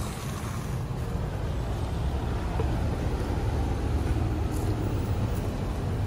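Steady low hum and rumble of Mitsubishi Electric VRF outdoor condensing units running, growing slightly louder.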